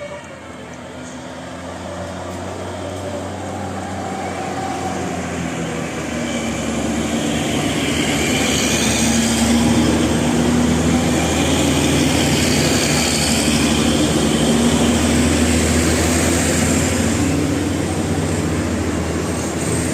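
A large bus approaching and passing close, its engine and tyres getting steadily louder over the first eight seconds and then staying loud.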